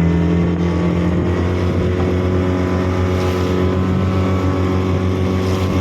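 A small fishing boat's motor running steadily at speed, with an even, rapidly pulsing beat.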